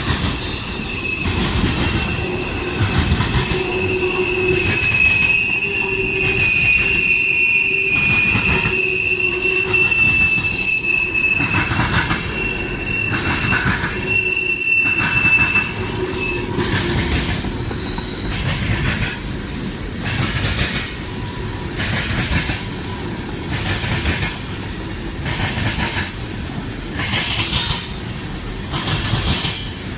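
Canadian Pacific train cars rolling past, their wheels squealing with a high steady tone for about the first half. Throughout, the wheels clatter over rail joints about once a second.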